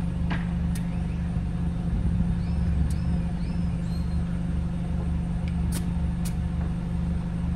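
A car engine idling with a steady low hum, with a few faint clicks as a tire inflator's air chuck and gauge are handled at the valve stem.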